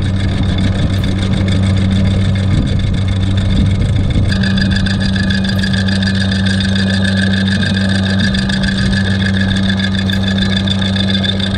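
Electric anchor windlass running, paying out anchor chain: a steady motor hum with a high whine, which changes pitch and grows stronger about four seconds in.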